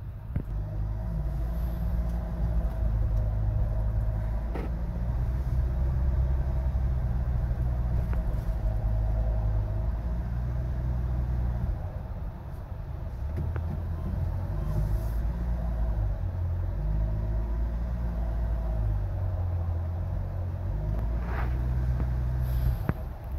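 Car cabin noise while driving on a wet street: a steady low engine and road rumble whose pitch shifts now and then, with two short clicks, one about five seconds in and one near the end.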